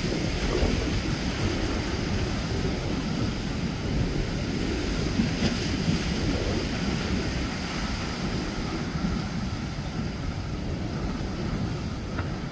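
Wind rumbling on the microphone over surf, with the engine of a cabin fishing boat running at speed through the inlet mixed into the steady noise.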